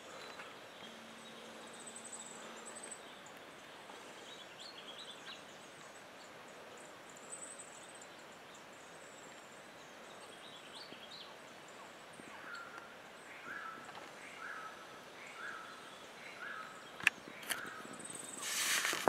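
Countryside ambience: a steady wash of light wind with small birds chirping high. From about twelve seconds in, a bird calls a short note roughly once a second, six times. Near the end there is a sharp knock, then louder rustling.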